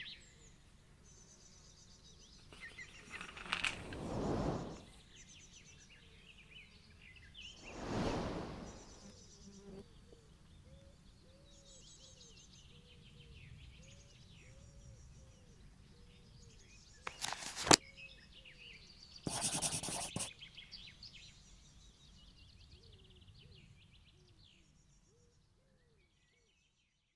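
Faint outdoor ambience with small birds chirping, broken by two swelling rushes of noise. A sharp click comes about 17 seconds in, then a short burst of noise, and the sound fades out near the end.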